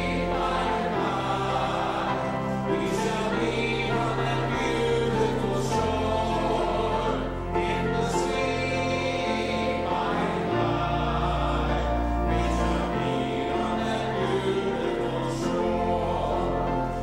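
Church music: a choir singing over instrumental accompaniment, with low bass notes each held for a second or more.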